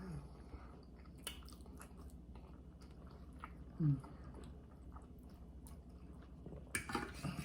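Close-up eating sounds: someone chewing and biting meat off barbecued baby back pork ribs, with faint wet clicks. There is a brief low vocal sound just under four seconds in.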